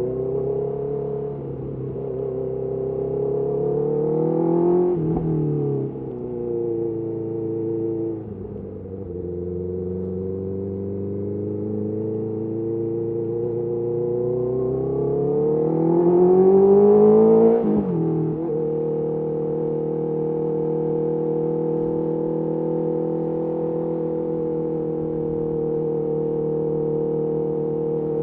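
Honda CBR650R's inline-four engine through a Mivv MK3 carbon aftermarket exhaust, ridden on the road: the engine note climbs under throttle, falls back, climbs again to its loudest point about two-thirds through, drops sharply, then holds a steady cruising note.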